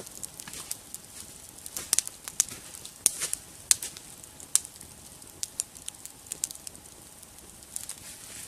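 Burning brush pile crackling, with scattered sharp pops at irregular intervals over a faint hiss.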